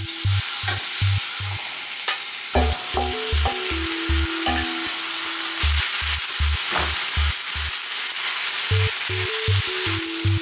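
Sliced beef and onions sizzling hard in oil in a frying pan, with a few clicks as the meat goes in and is stirred with a wooden spoon. Light background music with a bouncing bass runs underneath, pausing briefly near the end.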